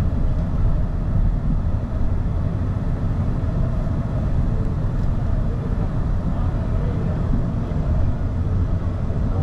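Car driving slowly, heard from inside: a steady low rumble of engine and road noise.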